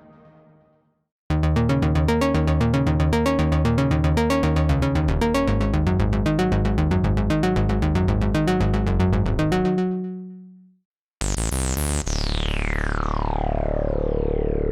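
u-he Repro-1 software synthesizer, an emulation of the Sequential Pro-One, playing presets. A previous note fades out, then a fast, even sequenced bass pattern runs for about eight seconds and ends on a held note that dies away. After a short pause a new patch starts with a quick run of notes, then a held note whose filter sweeps down from bright to dull and opens up again near the end.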